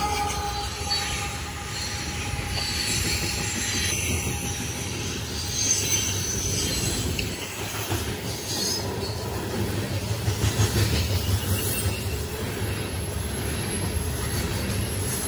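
Union Pacific coal train of hopper cars rolling past at close range: a continuous rumble of steel wheels on rail, with high-pitched wheel squeal coming and going and a few louder jolts about two-thirds of the way through.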